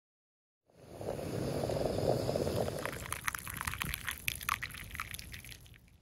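Liquid being poured for about two seconds, then a quick run of small clicks and ticks that fade out near the end.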